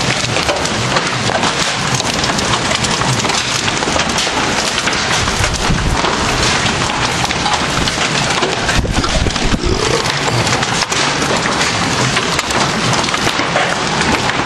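Hail and heavy rain pelting hard surfaces: a dense, steady clatter of sharp ticks over the hiss of rain, with low rumbles about six and nine seconds in.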